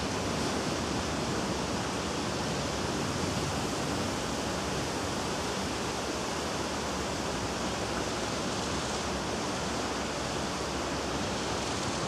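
Steady, even rushing noise of wind, with no distinct events.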